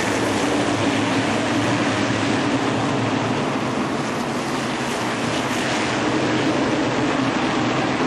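Steady mechanical rumble with a constant low hum, even in level throughout.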